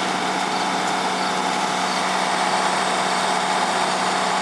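An engine running steadily at idle, a constant, unchanging hum.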